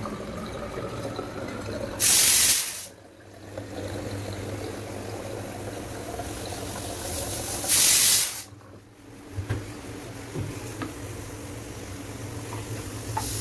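Pureit Copper water purifier dispensing into a plastic bottle: a steady hum with water running into the bottle. Two loud, short bursts of hiss come about two seconds and about eight seconds in.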